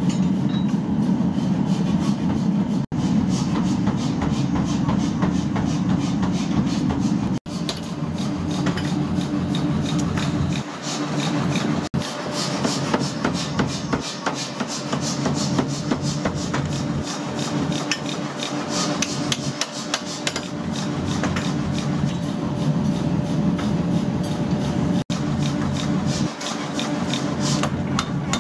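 Forging-shop noise: machinery running with a steady low hum under rapid metallic strikes and scraping of iron being hammered and worked. The sound breaks off for an instant several times.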